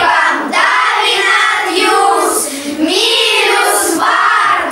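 A class of children singing together in chorus, loudly, in several drawn-out phrases.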